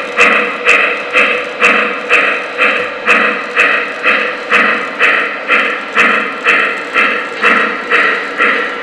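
O gauge model Shay steam locomotive's sound system chuffing steadily at about two chuffs a second as the train rolls by, with scattered sharp clicks.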